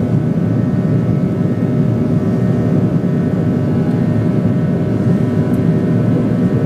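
Boeing 737-700 cabin noise in the climb after takeoff, heard from a window seat beside the wing: a loud, even rush of airflow and CFM56 engine drone, with a few faint steady hums.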